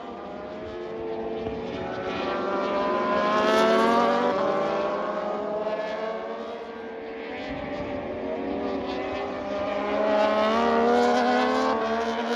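Several racing motorcycle engines passing on track at once, their pitch rising as they accelerate. The sound swells as bikes go by about four seconds in and again near the end.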